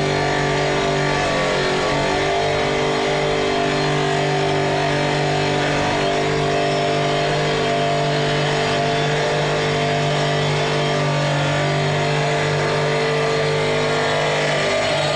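Stone-cutting machine running steadily, a constant motor hum with hiss on top.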